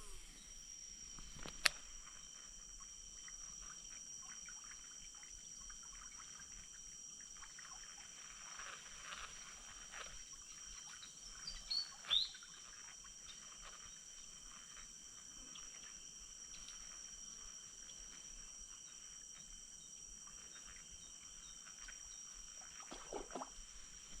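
Steady high-pitched drone of insects, several pitches held throughout, with a short falling bird-like chirp and a couple of soft clicks about twelve seconds in.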